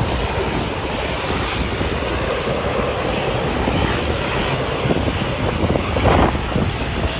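Airplane engines running steadily, a continuous even noise with no clear rise or fall.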